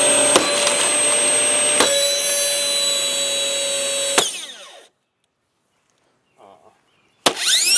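Eureka canister vacuum's motor, overvolted on 240 volts, running with a loud high whine; about four seconds in it cuts off with a click and winds down to silence. Near the end the motor starts again and spins up with a rising whine.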